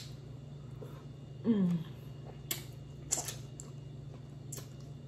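Close-up eating sounds: a short falling "mm" from the eater about a second and a half in, then a few sharp wet clicks of lips and sauce-covered fingers as she sucks and chews crab. A steady low kitchen-freezer hum runs underneath.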